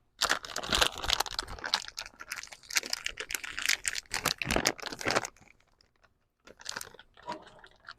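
Bag of frozen hamburger patties being opened and handled, crinkling densely for about five seconds, then a few softer rustles near the end.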